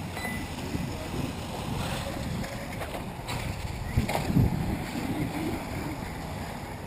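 Wind buffeting the microphone with a low rumble, over the faint running of 1/8-scale electric RC buggies on the track. A louder knock or gust hits about four seconds in.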